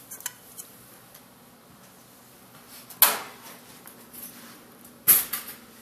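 Two sharp knocks, about two seconds apart, of kitchen cabinets being shut, after a few faint clicks over quiet room tone.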